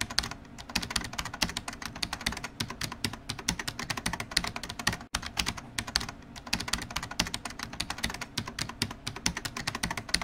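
Rapid, continuous computer-keyboard typing clatter, many clicks a second, with a very brief break about five seconds in.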